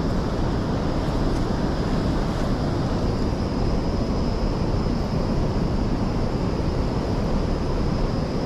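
Steady rumble of a boat underway, with wind buffeting the microphone.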